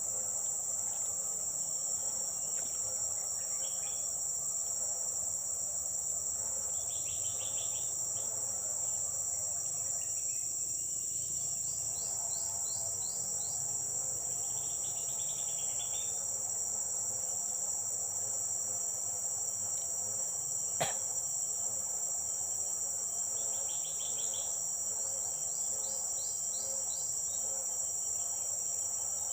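Continuous high-pitched drone of forest insects, with a few short chirping bird calls now and then and a single sharp click about twenty seconds in.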